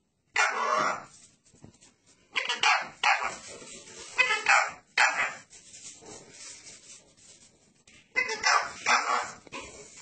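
Repeated short bark-like calls in clusters, with a quieter stretch of about two seconds after the middle.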